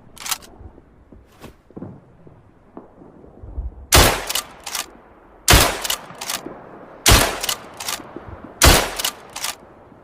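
Winchester Model 1895 lever-action rifle fired four times, about a second and a half apart. Each shot is followed by a couple of lighter clicks of the action being cycled, and a few light clicks come before the first shot.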